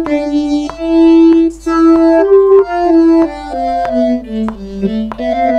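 Vocoded singing: a sung vocal line run through Logic Pro's EVOC 20 PolySynth vocoder, coming out as a synthetic chordal voice that holds notes and steps between them, moving lower in the second half.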